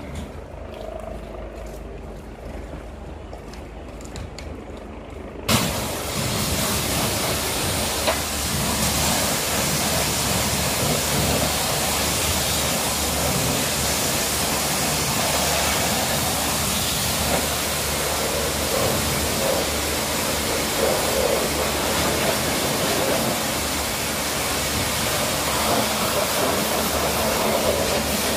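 Pressure-washer lances blasting water onto a car's body: a loud, steady hiss of high-pressure spray that starts suddenly about five seconds in, with only a quieter low hum before it.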